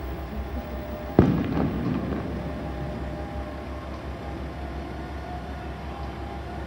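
KiHa 40-series diesel railcar idling at a standstill: a steady low rumble. About a second in, a single sharp burst rings out and fades over about a second.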